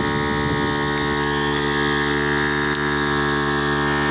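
Harbor Freight 12V portable air compressor running steadily, a constant even-pitched motor-and-piston drone, as it pumps up a flat truck tire past about 20 psi.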